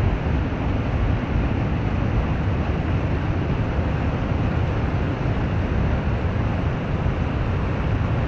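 Steady rushing of water after heavy rain, an even noise with a deep low rumble and no breaks.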